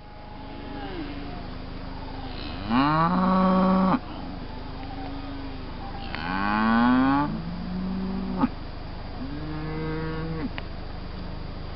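A calf mooing: three long calls, each rising in pitch, the first two loud and the third fainter. A single sharp click comes just before the third call.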